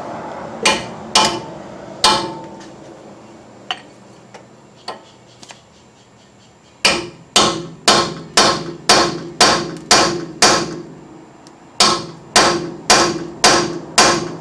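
Hammer blows on steel: a rusted, seized bolt in a Chevy Tracker's front suspension being driven, each strike ringing briefly. Three spaced blows and a few light taps come first, then two fast runs at about two blows a second with a short pause between them.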